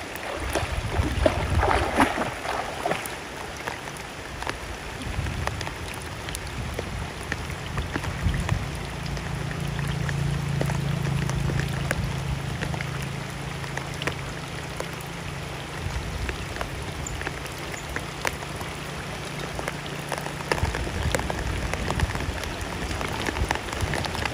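Steady rain falling on the water, a dense patter of many small drop hits. From about eight seconds in, a low steady hum joins it, and it stops suddenly at about twenty seconds.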